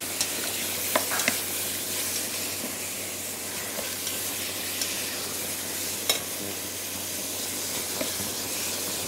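Beef and bacon pieces searing in a stainless steel pot, a steady sizzle as the meat seals and gives off its water, while a wooden spoon stirs them and knocks against the pot a few times.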